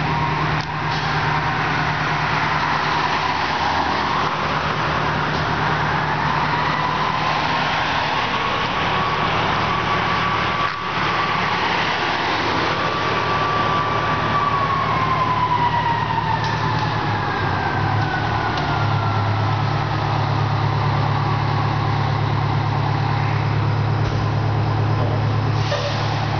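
Fire engine siren slowly winding up in pitch, holding, then falling away over several seconds, above the steady running of the fire trucks' engines.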